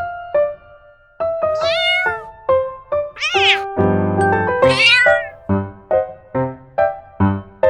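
A domestic cat meowing three times, each call bending up and then down in pitch, over piano music.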